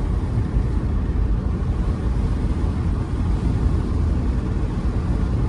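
Car driving along a road: a steady low rumble of engine and road noise heard from inside the car.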